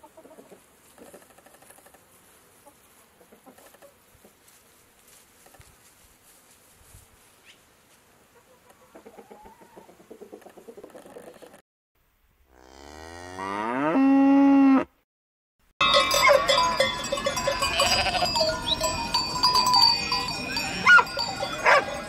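Faint chicken sounds at first. Then a cow moos once, the call rising in pitch and then held. In the last third, a flock of sheep bleats over the steady ringing of many bells.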